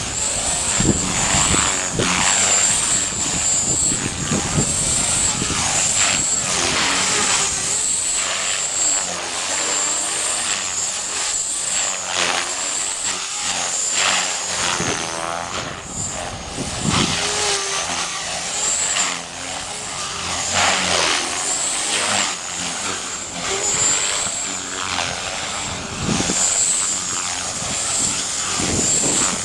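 450-size radio-controlled model helicopter in low flight, its motor and rotor blades giving a steady high whine that wavers as the throttle and pitch change.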